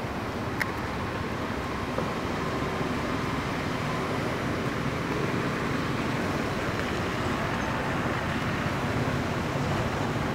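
Steady rushing background noise with no animal calls, a little louder after about two seconds, with a faint click about half a second in.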